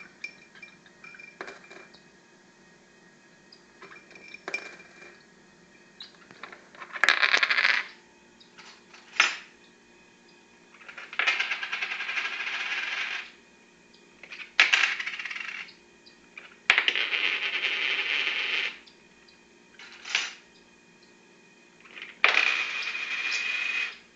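A metal toy rattled and shaken by a pet parrotlet, jingling and clattering in about five bursts of one to two seconds each, with single clinks between them.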